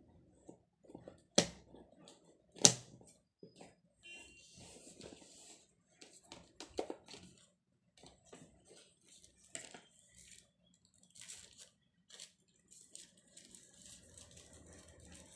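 Scissors snipping through the seal of a cardboard phone box with two sharp snaps about a second apart, then cardboard and paper rustling and scraping as the lid is opened and the inserts are handled.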